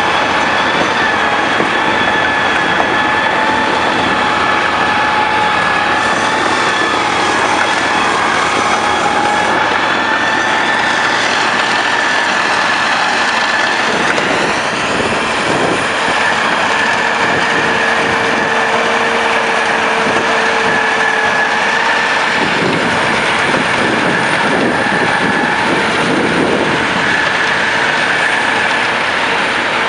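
John Deere wheel loader with a front-mounted snow blower running steadily while it throws snow, a loud, even rush of noise with a steady high-pitched whine on top.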